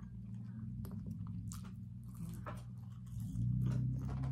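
Close chewing and biting of food, with wet mouth clicks and smacks, over a steady low hum that gets louder a little over three seconds in.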